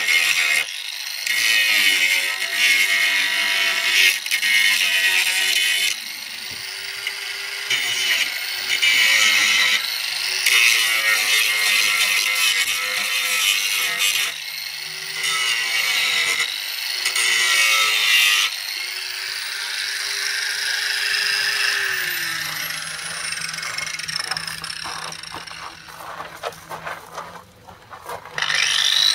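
Hand-held angle grinder grinding in repeated bursts, its motor tone breaking off and picking up again. About two-thirds through it winds down and stops, leaving a few light knocks and clicks, and near the end it starts up again.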